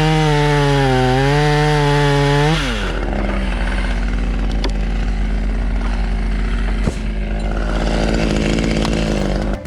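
Gas chainsaw running at high revs, its pitch wavering as it cuts through an oak limb. About two and a half seconds in the throttle is released and the revs fall away, leaving a lower, steady engine sound with a few faint clicks.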